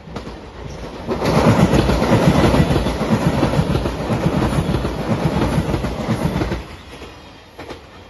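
JR Shikoku 8000-series Anpanman limited express electric train passing close by, its wheels clattering rapidly over the rails in a loud rush that lasts about five seconds and then drops away quickly.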